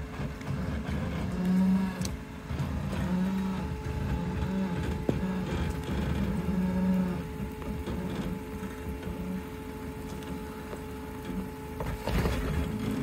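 Fiat Panda 4x4's engine labouring in repeated short bursts of revs at a steady pitch as it crawls slowly over a rough off-road lane, with a steady whine underneath.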